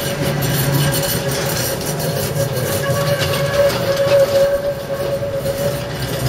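An ADtranz Variotram low-floor light rail tram passes close by at low speed, with a steady high tone over a low rumble.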